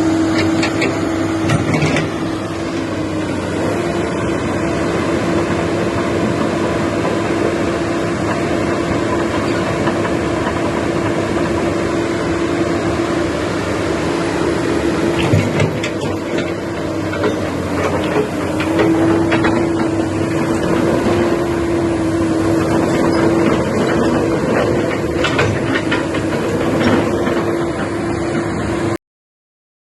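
Komatsu PC200 excavator running, its diesel engine giving a steady hum with one strong held tone, with a few short knocks and clanks along the way. The sound stops abruptly near the end.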